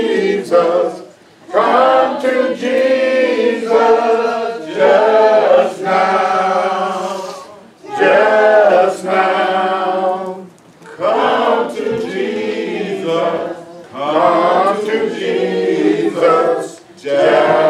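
Church congregation singing an invitation hymn together without instruments, in sung phrases of a few seconds separated by short breaks.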